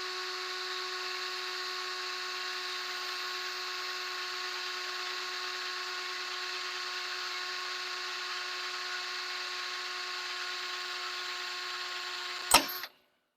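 Small electric drill running steadily with a constant whine, drilling a hole through stainless steel. It stops abruptly with a sharp click near the end.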